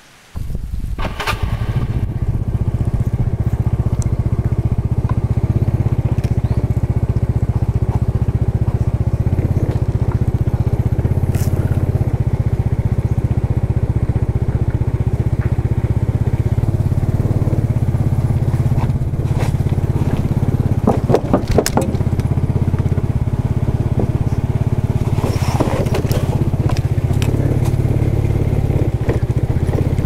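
Motor scooter being ridden along a dirt and gravel road: the engine runs steadily under a heavy low rumble of wind on the microphone. It starts suddenly, and a few sharp knocks and rattles come about two-thirds of the way through.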